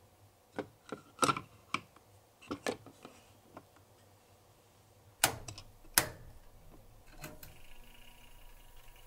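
Small plastic clicks and taps from a miniature toy oven as its tray and door are handled, then two louder sharp clicks about five and six seconds in. About seven seconds in, a steady hum like an oven running starts.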